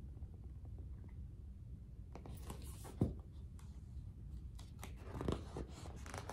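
Paper rustling and soft handling noise as a picture-book page is turned, with one sharp knock about three seconds in, over a low steady hum.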